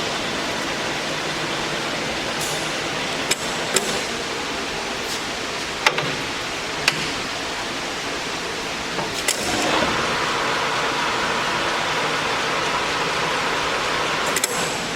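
LeBlond Dual Drive engine lathe running with a steady mechanical hum, with several sharp clicks. About nine and a half seconds in the sound shifts and then runs a little louder.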